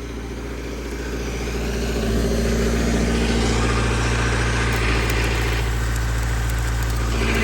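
An engine running steadily, picking up in speed and getting louder over the first two seconds, then holding, with a steady hiss above it.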